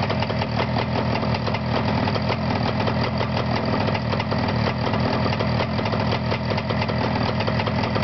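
Jawa twin-cylinder two-stroke motorcycle engine running steadily at constant speed, a rapid even exhaust beat from its twin silencers. The engine has been newly rebuilt and is on a test run in a bare frame.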